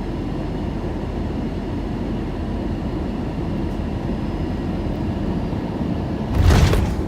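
Steady rumble of airflow and engines inside an Airbus A321-231 cabin on the landing. About six and a half seconds in comes a heavy thump of about half a second as the main gear hits the runway in a hard landing.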